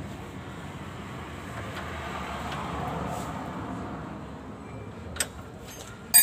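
A steady low background rumble that swells and fades midway, then a small click about five seconds in and a sharp metal clink of a hand tool on the gearbox fittings near the end, during work on the truck's clutch slave cylinder.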